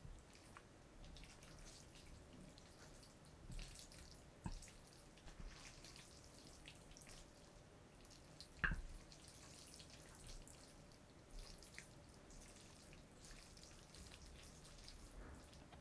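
Faint, small wet and sticky sounds of sauce-coated instant noodles being lifted and mixed with wooden chopsticks, with one sharper click about nine seconds in.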